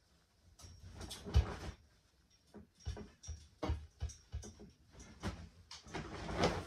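Clothes being taken off a metal folding drying rack and dropped into a large plastic shopping bag: fabric and bag rustling with scattered knocks and clicks from the rack, the sharpest knock about a second and a half in.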